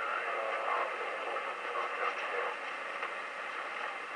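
Sharp CB-2460 CB radio's speaker hissing with steady AM receiver static on an open channel, with the squelch turned down.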